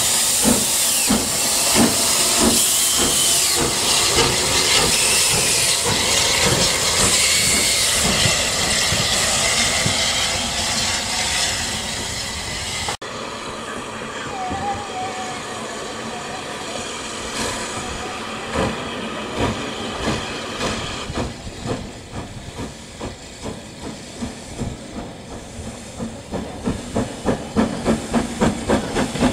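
Maunsell S15 class 4-6-0 steam locomotive, first standing and hissing loudly as steam escapes from its cylinder drain cocks. After a sudden cut about halfway through, the engine approaches with its drain cocks open, its exhaust chuffs growing louder and quicker, about three a second near the end.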